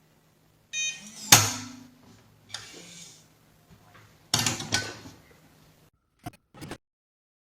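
Biometric pistol safe: a short electronic beep, then a loud mechanical clunk, a cluster of clacks a few seconds later, and two small clicks near the end as the lid and latch are handled.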